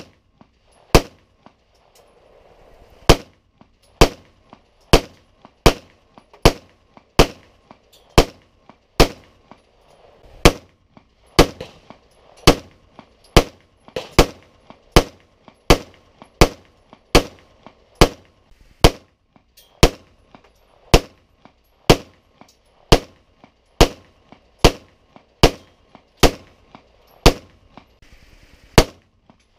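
Smith & Wesson SD9VE 9mm pistol firing a long string of sharp single shots, about thirty of them at roughly one a second, with one longer pause just after the first shot.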